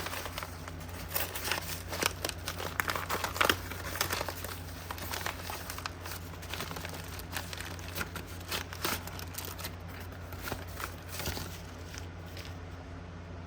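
Plastic packaging crinkling and rustling as it is handled and opened to get the pins out, in irregular crackles that are busiest at first and thin out near the end.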